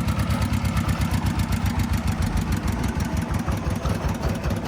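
Single-cylinder diesel engine of a công nông farm truck running steadily, in an even, rapid beat.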